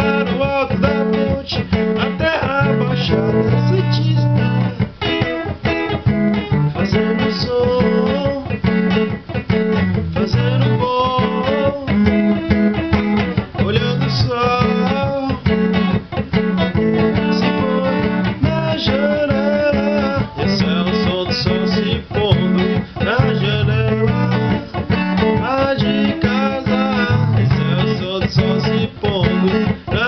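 Guitar music: an electric guitar plays melodic lines with notes that bend in pitch, over a steady chord accompaniment.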